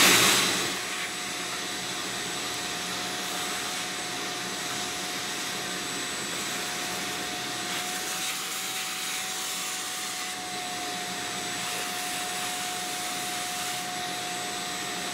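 Ridgid shop vacuum running steadily with a constant whine, its nozzle sucking up fine ash dust from a pellet stove.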